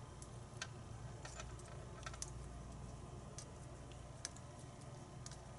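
Faint, scattered small metallic clicks as a shim and tools are worked against a pin tumbler lock cylinder to free its core.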